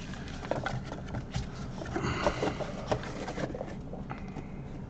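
Hands rummaging in a cardboard shipping box and moving card stacks: scattered taps and knocks, with a stretch of rustling and scraping in the middle.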